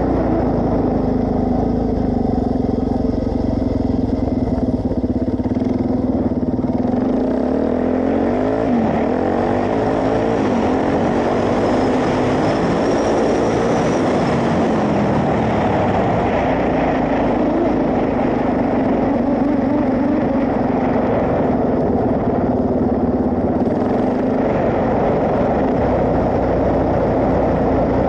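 Suzuki DR-Z400S single-cylinder four-stroke engine running steadily while riding. Around the middle its note rises and falls for several seconds as the revs change, then settles back to a steady pace.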